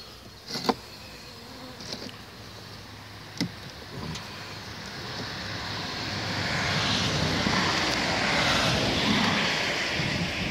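A few sharp wooden knocks as a metal hive tool pries and pushes beehive frames together. Then a steady rushing noise swells up over a few seconds and holds, louder than the knocks.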